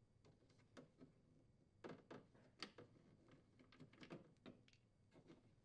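Faint, scattered clicks and taps of a nut driver working on screws and the plastic ice bucket glide inside a refrigerator freezer compartment, about nine small ticks spread over a few seconds.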